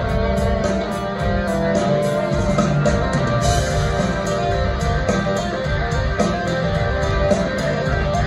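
Live rock band playing an instrumental passage: electric guitars, bass guitar, keyboard and drums, with a steady cymbal beat, heard through a theatre's PA from the audience.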